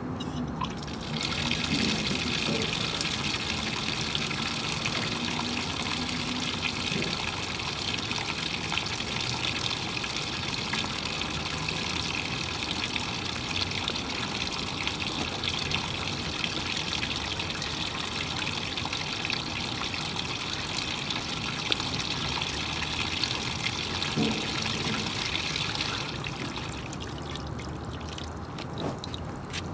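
Water running steadily from a wall tap into a plastic basin and spilling over its rim. It starts about a second in when the tap is opened and cuts off suddenly a few seconds before the end when the tap is closed.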